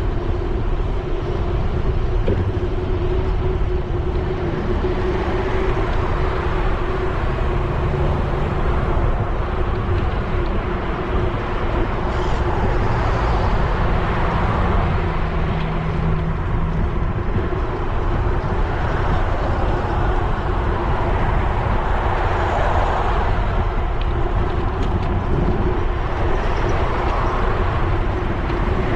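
Steady rumble of riding a bicycle along a busy road, with wind on the handlebar-mounted action camera's microphone and a faint steady hum. Car traffic swells up as vehicles pass, most clearly about halfway through and again near the end.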